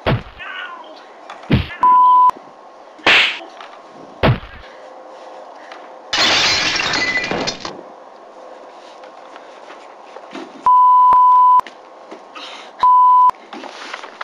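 Thuds and whacks of blows in a staged fistfight. About six seconds in comes a loud crash of things breaking and tumbling that lasts over a second. A steady high beep sounds three times, the longest near the end.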